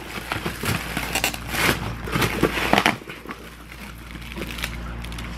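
Cardboard box flaps scraping and plastic wrapping crinkling as a plastic-wrapped lampshade is worked out of its box: a run of short rustles over the first three seconds, then quieter handling.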